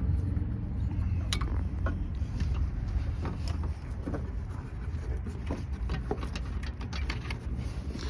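Scattered light clicks and taps of hands working at a car's headlight housing, unscrewing the bulb's cover, over a steady low rumble.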